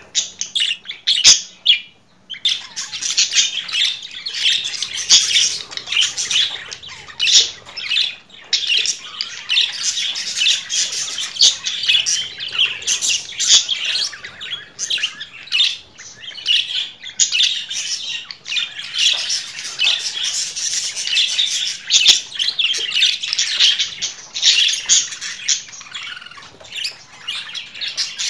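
Budgerigars chattering and warbling: a fast, continuous stream of chirps and squawks, with a short lull near the start.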